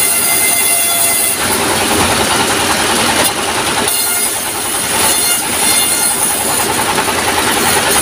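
Stationary diesel engine running a sawmill saw. From about a second and a half in, the blade rips a wooden plank lengthwise, a coarse sawing noise over the engine's steady hum.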